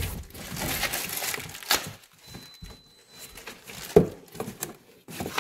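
Cardboard box and packaging rustling and scraping as chair parts are handled inside it, with a sharp knock about four seconds in and a smaller one a little before two seconds.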